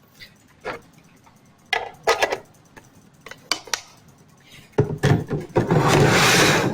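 Plastic food containers and lids being handled: a few scattered knocks and clicks, then from about two-thirds of the way in a louder, steady scraping rustle of plastic.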